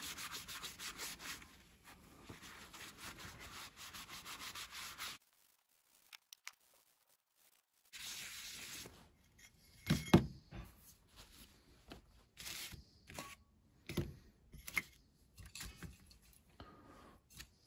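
Cloth scrubbed briskly over a spray-painted, laser-etched ceramic tile in quick repeated strokes. It stops for about three seconds, then resumes briefly. After that come a few sharp knocks on the wooden bench.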